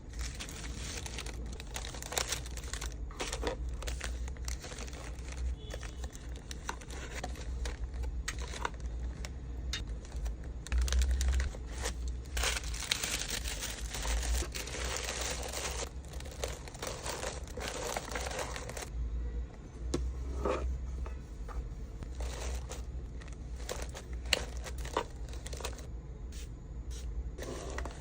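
Packaging material crinkling and tearing as items are handled and packed by hand, with many small clicks and taps. A steady low hum runs underneath.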